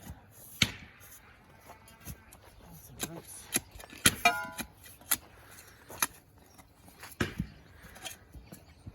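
About a dozen irregular knocks and clinks, with a short metallic ring about four seconds in.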